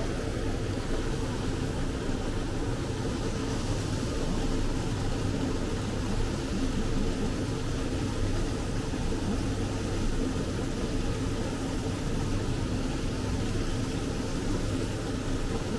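Steady low mechanical hum with an even rumble underneath, unchanging throughout.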